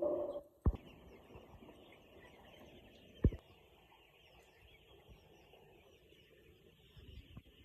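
A flock of ten-day-old chicks peeping steadily as a dense chorus. A short low sound comes at the very start, and two sharp knocks come about a second in and just past three seconds.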